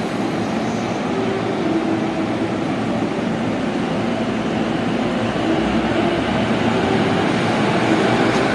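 JR East E233-series electric commuter train pulling out and accelerating, its traction motors whining and rising in pitch over the rumble of the wheels, getting louder as the cars pass.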